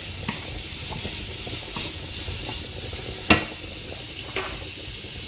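Pancetta and garlic sizzling steadily in oil in a frying pan, with a few sharp clicks of a utensil against the pan. The loudest click comes a little past the middle.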